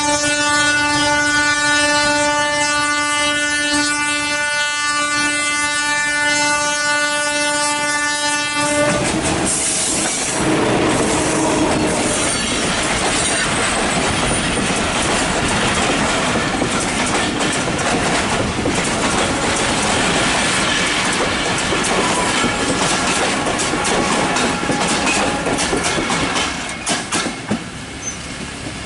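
Diesel locomotive's air horn sounding one long steady blast of about ten seconds, then a fast passenger train passing close by, its wheels clattering over the rail joints. The sound drops away near the end as the last coach moves off.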